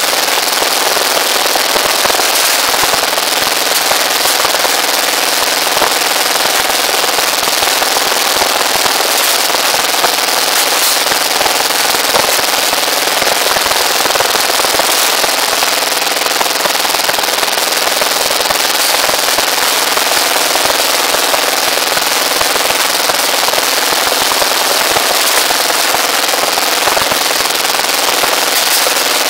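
Engine-driven rebar bending machine running, a steady, loud, rapid clatter as its disc turns to bend steel rods.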